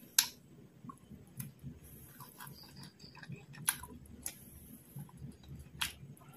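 Close-miked chewing of fried quail, eaten with the fingers, with five sharp, wet mouth smacks and clicks at uneven intervals.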